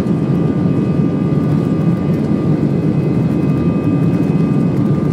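Airbus A320's jet engines running steadily, heard from inside the passenger cabin: an even low rumble with a few thin, steady whine tones above it.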